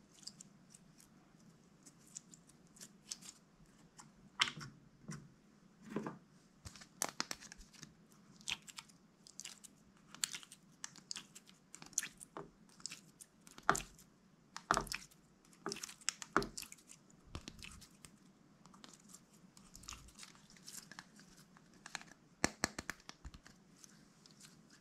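Slime being squished and kneaded by hand, giving irregular sticky clicks and pops, several a second with short pauses.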